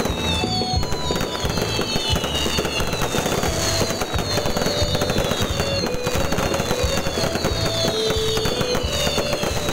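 Fireworks display: a continuous dense crackling and popping of aerial shells and fountains, with several falling whistles sweeping down through it.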